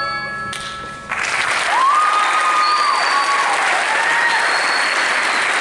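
The choir's last held chord with its accompaniment fades out, then about a second in an audience breaks into loud, steady applause, with a few cheering calls over it.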